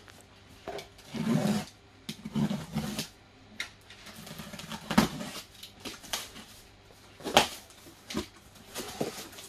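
Cardboard box being opened by hand: packing tape slit with a box cutter and cardboard flaps pulled open. Irregular scraping rasps, with two sharp cracks about halfway and three quarters of the way through.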